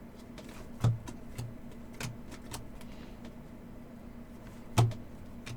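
Trading cards being handled: a few short, irregular clicks and taps as cards are flipped and set down, over a steady low hum.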